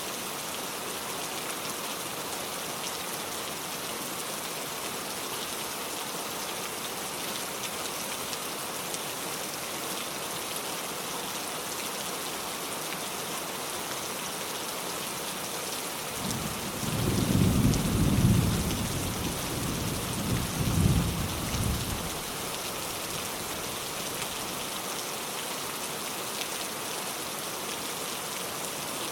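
Steady rain falling. A little past halfway, a rumble of distant thunder swells twice over about six seconds, then fades back under the rain.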